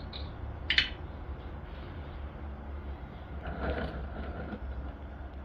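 Hand work with metal tools and parts: a sharp click about a second in and a scraping rustle near four seconds, over a steady low hum.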